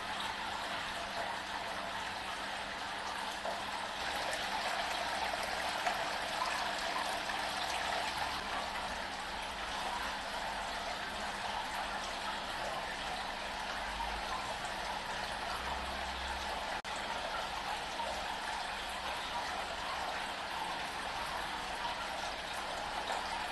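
Water spilling down the many small cascades of a slate stone water-wall fountain onto the pebbles of its basin: a steady trickling and splashing, with a faint steady hum underneath.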